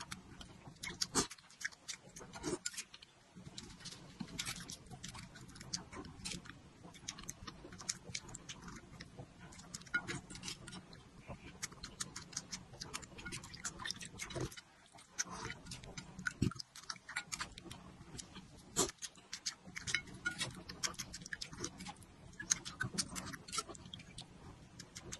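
Close-miked eating sounds: wet chewing, lip smacks and slurps of spicy chili-oil broth taken from a spoon, making many irregular clicking mouth noises.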